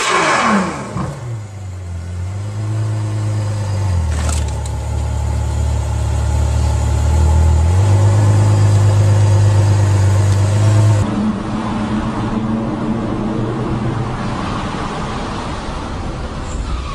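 Car engine running, its pitch falling away at first and then holding low, steady notes that shift in steps; the sound changes about eleven seconds in, with a lighter engine note after.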